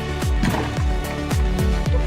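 Background music with a steady, deep drum beat, about two beats a second.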